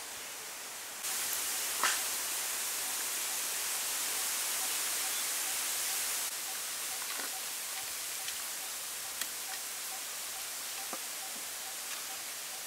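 Steady outdoor background hiss that jumps louder about a second in and eases back a little after six seconds, with a few faint clicks and a faint regular ticking.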